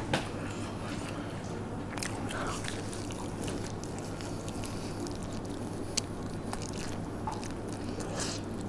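A person biting into and chewing a burger, close to the microphone, with a few short clicks and a steady low hum behind.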